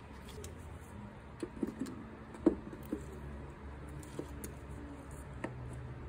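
Light clicks and taps of metal hand tools as needle-nose pliers are handled and set against a crankshaft front oil seal in a timing chain cover, over a low steady hum. About half a dozen irregular taps, the sharpest about two and a half seconds in.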